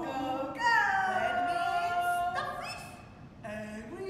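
A woman's voice making drawn-out wordless vocal sounds: a long held note starting under a second in that slowly falls in pitch, then a shorter one.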